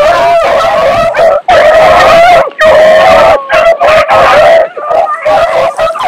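A pack of beagles baying as they run a rabbit: long, loud, overlapping howls broken by short gaps.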